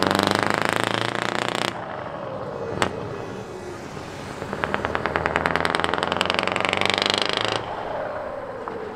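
Scania R620's 16-litre V8 pulling away under load with a loud, rapidly pulsing exhaust note. The throttle eases off about two seconds in, then the engine pulls hard again for about three seconds before easing off once more near the end.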